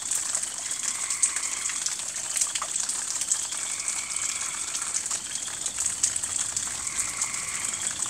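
Steady rain falling at night: an even hiss with scattered ticks of drops.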